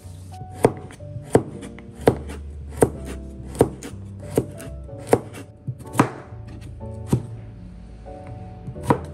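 A kitchen knife chopping carrots on a plastic cutting board: a steady run of sharp knocks, about one every three-quarters of a second, over soft background music.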